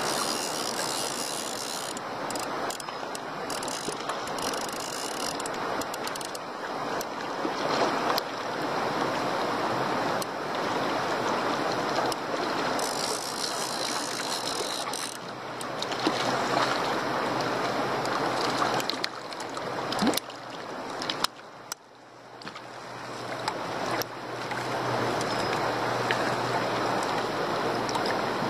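Shallow rocky stream running over stones in a steady rush, with scattered sharp clicks on top.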